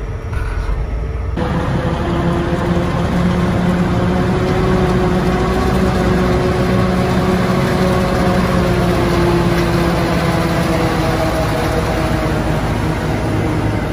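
Forage harvester running steadily as it chops standing corn and blows it into a truck: a loud, even machine drone with several held tones that drift slightly in pitch. About a second in, a quieter tractor-cab sound cuts off abruptly and the harvesting noise takes over.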